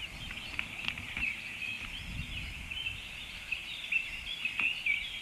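Birds twittering and chirping continuously in high, rapid squiggles, with a few sharp clicks scattered through.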